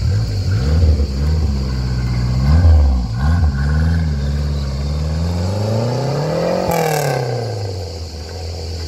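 Renault 5 GT Turbo's turbocharged four-cylinder engine revved in a few quick blips, then pulling away: the engine note climbs steadily to a peak about seven seconds in, with a brief hiss there, then falls away.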